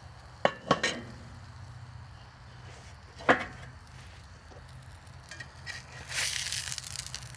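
A few light clicks and one sharp knock, then, for the last second or so, a spatula scraping along a cast iron skillet as it slides under a grilled pizza.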